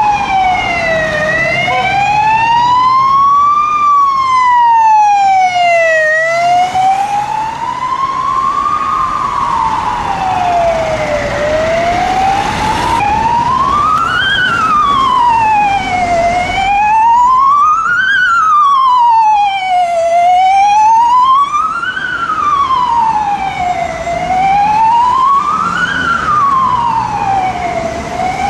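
Emergency-vehicle siren in wail mode, sweeping slowly up and down, each rise and fall taking about five seconds. After a cut about 13 s in, a Belgian 112 Mercedes ambulance's wail siren takes over, cycling a little faster, about every four seconds, and rising a little higher.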